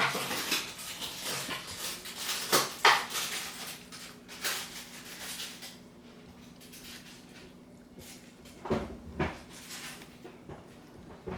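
A sleeping Pomeranian breathing noisily and snuffling: a run of irregular short rasping sounds, dying down about halfway through, with a few more later. A low steady hum runs underneath.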